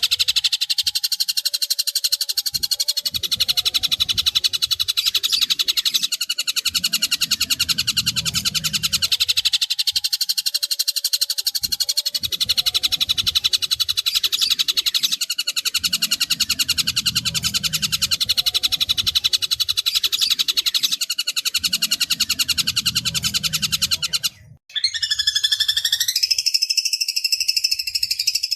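Long-tailed shrike (pentet) singing a fast, harsh, rattling trill without a break, with soft low rumbles coming and going beneath it. Near the end the trill cuts off sharply and a different call with rising and falling pitched notes takes over.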